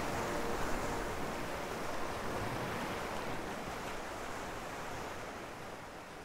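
Steady rushing of ocean surf, slowly fading out.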